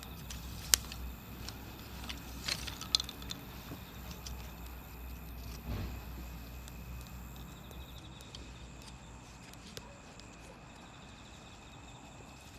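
Wood campfire crackling, with one sharp pop about a second in and a cluster of pops near three seconds in, over a low steady rumble.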